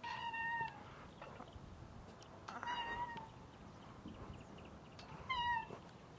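Playground swing's metal chain hangers squeaking as the swing goes back and forth: a short, high squeak three times, about every two and a half seconds, in time with the swing.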